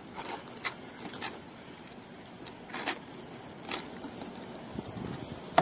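Outdoor background noise with a few scattered light clicks and knocks, ending in one sharper click.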